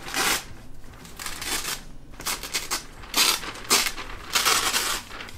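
Wrapping paper crinkling and tearing by hand in a series of short rips as a hole is torn through it.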